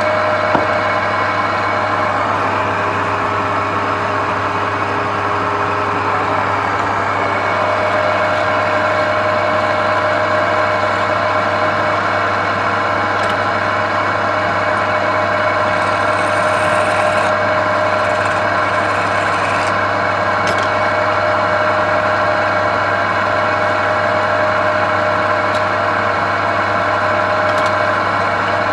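Woodturning lathe running steadily, its motor humming with a constant pitch.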